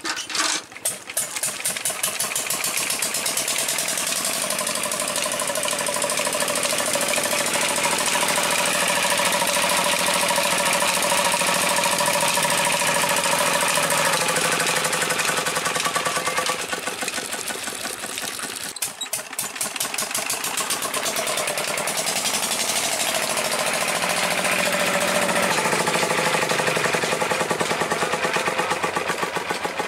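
Old Petter diesel engine catching about a second in, then running with a steady, rapid firing beat as it drives a water pump; the sound dips briefly just past the middle and then recovers.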